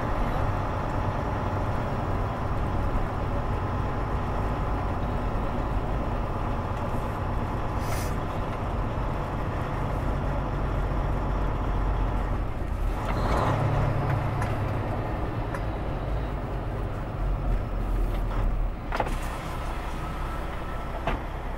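Semi-truck engine running steadily with tyre noise on a wet road, heard from inside the cab while the truck drives slowly. A few short knocks or thumps come along the way, the loudest about two-thirds of the way through.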